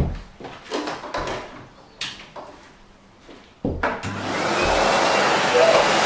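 Knocks and clatter of a Henry vacuum cleaner's hose and metal wand being handled. About two-thirds of the way in the Henry cylinder vacuum is switched on, and its motor comes up to speed within about half a second to a steady rushing of air.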